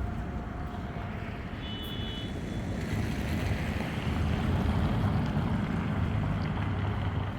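City street ambience: steady traffic rumble, with a vehicle passing that swells from about three seconds in. A brief high tone sounds about two seconds in.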